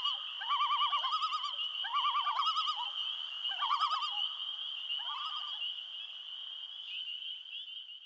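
Nature sound bed of animal calls: a steady high trilling chorus with short, wavering, warbling calls repeating about once a second over it. The warbling calls stop about two-thirds of the way in and the trill fades out at the end.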